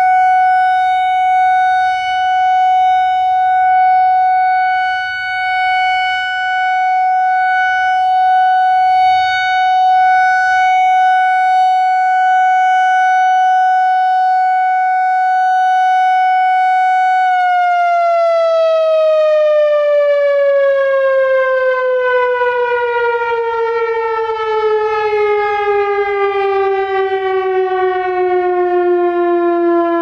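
Whelen WPS-4004 analog electronic siren sounding its steady Alert tone loudly as its four-cell horn array rotates. About 17 seconds in, the tone begins a simulated wind-down, gliding smoothly and steadily down in pitch.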